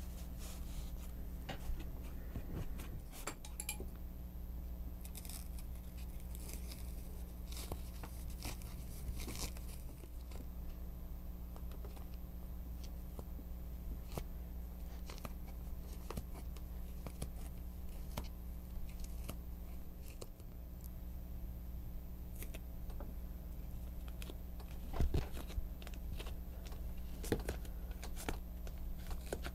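Soft rustles, scrapes and taps of cut foam-rubber pieces being handled and pressed into place on a newspaper-covered table, over a steady low hum. A short cluster of louder taps comes about 25 seconds in.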